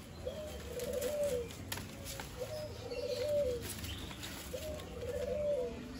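A bird cooing three times, about every two seconds: each call a short rising note running into a quick warble that drops away at the end.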